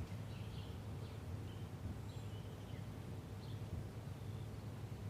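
Outdoor spring morning ambience: birds chirping in short, scattered calls over a steady low background rumble.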